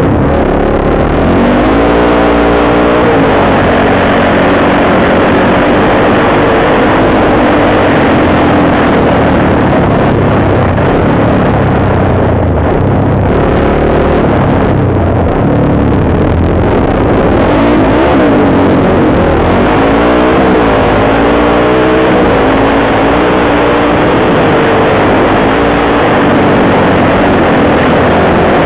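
Dirt bike engine revving up and down as it is ridden over rough ground, its pitch rising and falling again and again under a loud, steady rush of noise.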